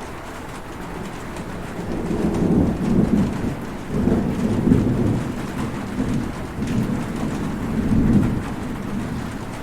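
Heavy rain falling steadily, with a low rolling rumble of thunder that builds about two seconds in and swells several times.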